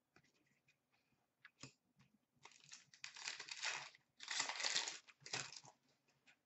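Trading cards being handled: a few light clicks, then dry rustling and sliding of cards against one another in three bursts, the longest about a second.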